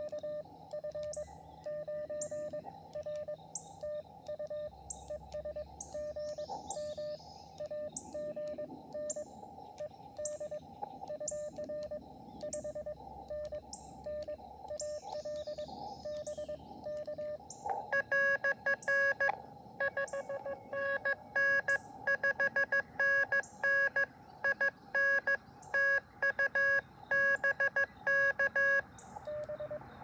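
Morse code (CW) from an Elecraft KX2 transceiver on the 30-metre band: a steady tone of about 600 Hz keyed rapidly into dots and dashes. About two-thirds of the way through, a louder, stronger keyed signal takes over.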